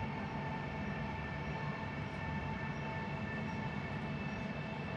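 PESA Elf electric multiple unit EN76B-004 approaching at low speed: a steady low rumble from the wheels and running gear, with a steady high whine over it.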